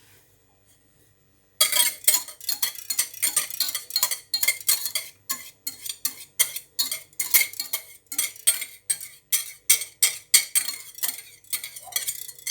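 A utensil scraping and clinking against a dish as cooked macaroni is stirred to coat it with beaten egg yolk. The strokes come quickly, a few a second, and start about a second and a half in.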